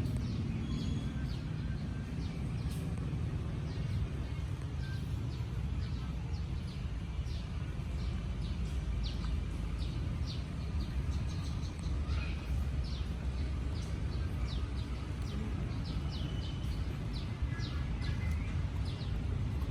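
Small birds chirping: many short, high, downward-sliding chirps, several a second at times, over a steady low rumble.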